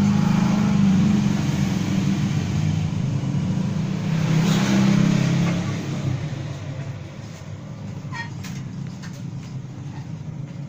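Motor vehicle engine running, loudest in the first six seconds with a swell about four to five seconds in, then fading to a lower background rumble.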